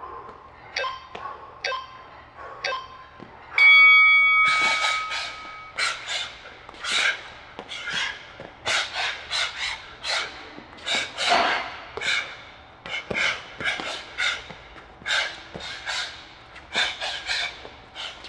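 An interval timer gives a few short countdown beeps, then a long beep about three and a half seconds in that starts a 20-second Tabata work round. After it comes a string of quick, sharp exhales, about one or two a second, as a boxer shadowboxes and breathes out with his punches.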